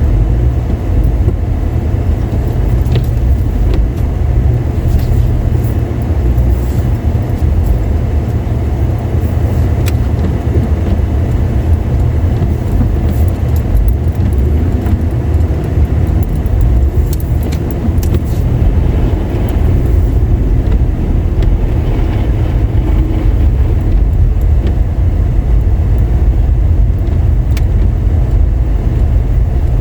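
A car driving on a wet, snowy road makes a steady low rumble of engine and tyre noise throughout, with a few faint clicks now and then.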